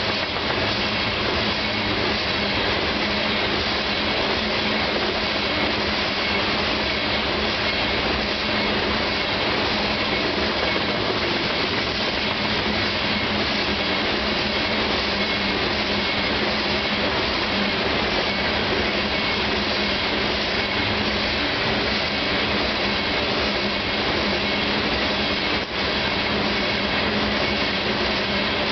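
Freight cars of a CSX coal train rolling past at speed: a steady, loud noise of steel wheels on rail, with a steady low hum underneath throughout.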